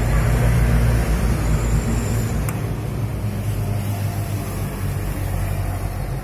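Isuzu D-Max turbodiesel engine idling steadily, a low, even mechanical rumble.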